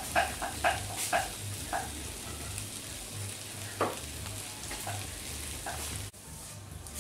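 Food frying in a pan on a gas hob, with a steady sizzle. A quick run of short high chirps, about four a second, is heard in the first second or so, with a few single chirps later.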